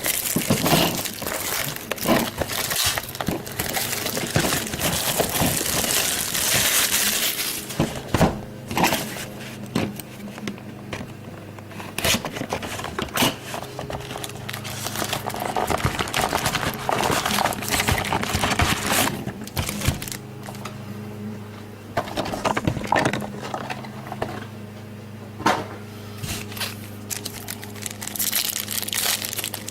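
Plastic and foil trading-card pack wrappers crinkling and tearing, with irregular clicks and rustles as cards are handled. A steady low hum runs underneath.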